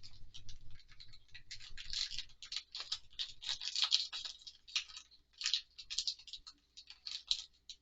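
Wrapper crinkling and rustling as a chocolate truffle is unwrapped and handled: a run of irregular, high, crackly rustles.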